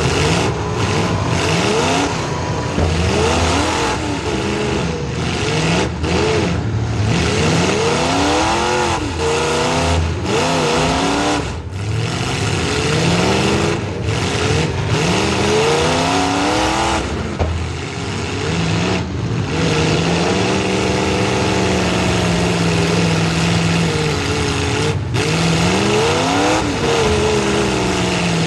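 Small-block Chevy V8 of a demolition derby car, revving up and falling back over and over as the car is driven hard through the heat.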